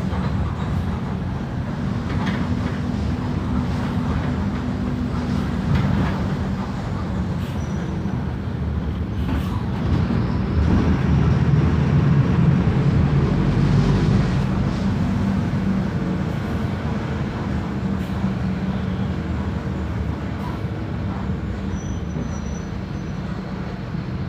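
Mercedes-Benz OF 1519 bus's four-cylinder turbodiesel engine running as the bus drives, a steady low rumble. It swells louder for a few seconds in the middle, then settles back.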